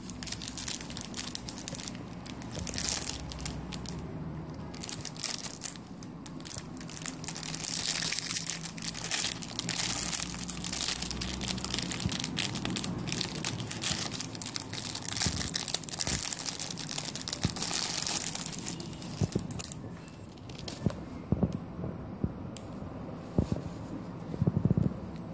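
Clear plastic bag crinkling and crackling as it is handled and opened to take a watch out. Later, the crinkling gives way to a few scattered sharp clicks and taps as the metal watch and its mesh band are handled.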